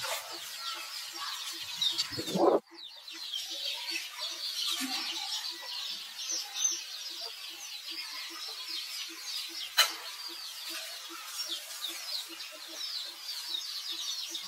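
Dense chirping of small birds, with a low short call repeating about three times a second underneath. A loud rustling burst just after two seconds cuts off abruptly, and a single sharp click comes near ten seconds.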